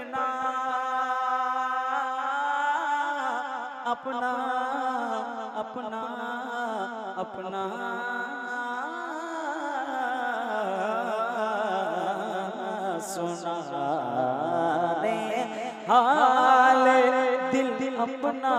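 A man's voice singing a naat into a microphone, drawing out long, wavering held notes without clear words. The voice gets louder about sixteen seconds in.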